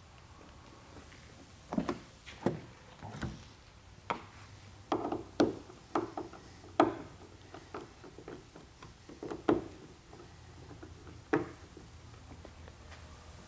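Irregular sharp knocks and clicks of hand tools and hardware as the front panel of a hard-folding tonneau cover is opened and the windseal rail bolts are tightened against the striker bracket.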